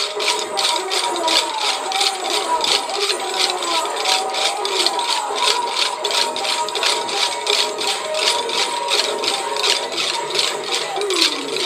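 Kolattam dance sticks, short lacquered wooden sticks, clicking together in a steady rhythm of about four strikes a second over a melodic folk song.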